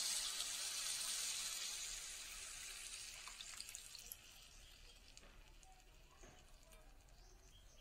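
Liquid poured into a hot pan of fried spiced yam pieces, hissing and sizzling loudly at first and dying away over the first few seconds. After that, a few faint clicks and scrapes from a wooden spatula in the gravy.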